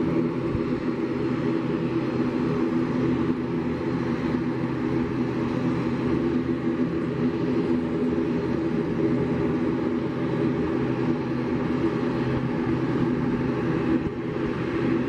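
Boeing 737 MAX 8's CFM LEAP-1B jet engines running at taxi power: a steady drone with several steady low tones, dipping briefly near the end.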